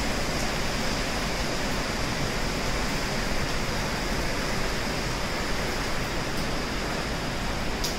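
Heavy hurricane rain and wind: a steady, unbroken rushing noise.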